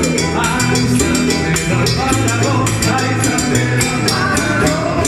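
Salsa music with dense, steady percussion strokes and a held bass line.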